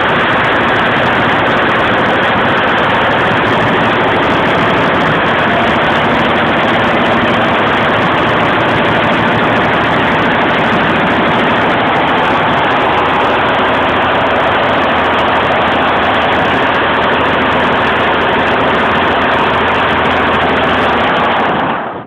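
Golden Lion multi-head embroidery machine stitching at 850 rpm, a loud, steady mechanical clatter that cuts off suddenly near the end.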